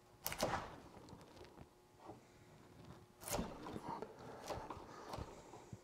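Bench chisel pushed by hand through wood, paring the floor of a half-blind dovetail socket level: a few short, sharp cutting sounds, the loudest about a third of a second in and just after three seconds, with smaller ones after.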